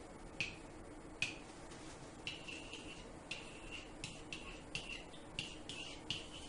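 Pen stylus tapping and scraping on an interactive whiteboard while numbers are written: two sharp taps in the first second and a half, then a run of short writing strokes, about two a second.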